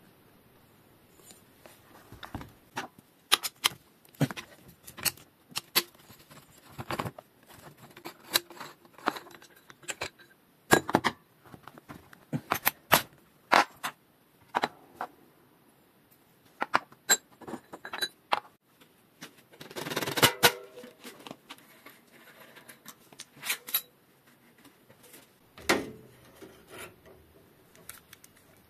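Saddle rails, seatpost clamp parts and the seatpost handled and set down on a workbench: irregular sharp metal clicks and taps, with a short rustling stretch about two-thirds of the way through.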